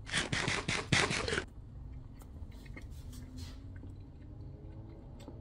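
A bite into a cheeseburger topped with French fries: a loud crackly crunch for about a second and a half, then quiet chewing with small wet clicks.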